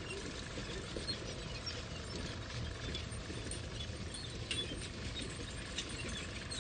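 Metal construction site background: a steady low rumble with scattered light clicks and taps.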